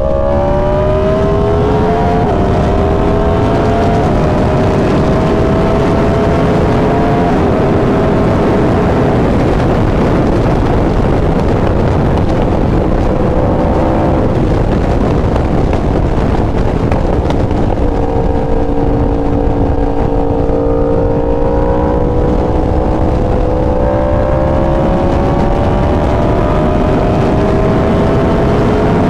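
Yamaha R1 sport bike's inline-four engine pulling along at highway speed. The engine pitch climbs slowly and falls away suddenly several times, with a long slow climb in the second half, all over heavy wind rush.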